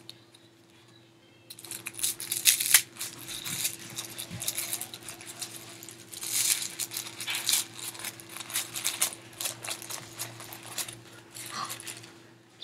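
Crinkling and crackling of a small plastic blind bag being torn and picked open by hand: a dense run of small crackles that starts about a second and a half in.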